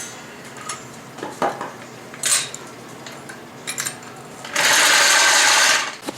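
A few light metallic clicks and knocks, then compressed air hissing steadily for about a second and a half from an air chuck inflating a tire.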